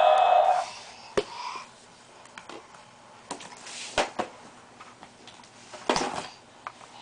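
A baby handling a foam play-mat tile and plastic toys: scattered taps and knocks with soft rustling between them. A steady electronic tone cuts off about half a second in.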